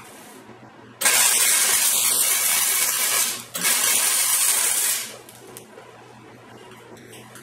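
MIG wire-feed welder arc hissing and crackling as a bead is laid on a steel frame bar, in two runs. The first starts suddenly about a second in and lasts about two and a half seconds; after a brief break a second run lasts about a second and a half, then stops.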